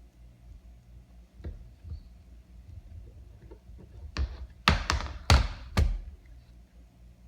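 Computer keyboard keys being struck: a couple of light clicks, then a quick run of five or six louder clacks about four seconds in, over a faint steady hum.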